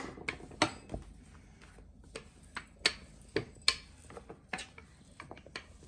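Rolling pin working dough on a floured granite countertop: a string of irregular sharp clicks and knocks, about two a second, the loudest right at the start.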